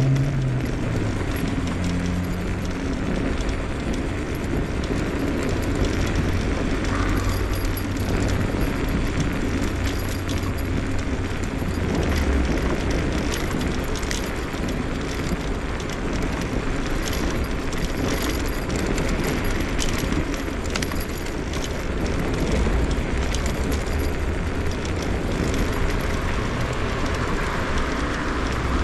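Scooter riding along city streets: a steady rushing noise of wheels on pavement and air going past, with scattered small clicks and rattles. A low hum near the start fades out within the first second or so.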